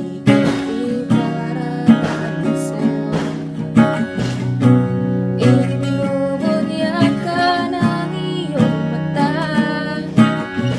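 Acoustic guitar with a capo, strummed chords at a steady rhythm. A woman's voice sings a melody over it in the second half.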